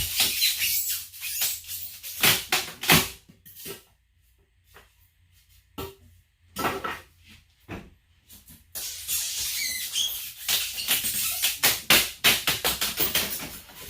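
Foam board being pried and scraped off glued bench work with a putty knife and a flathead screwdriver: irregular bursts of scraping, squeaking and cracking. There is a pause of about two seconds near the middle.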